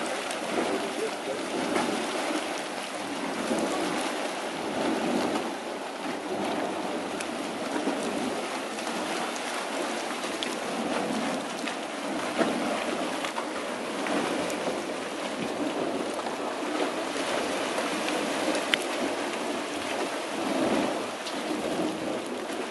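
Dragon's Mouth Spring, a hot spring surging and splashing out of its steaming cave: a steady rushing, sloshing water noise with a few sharper splashes.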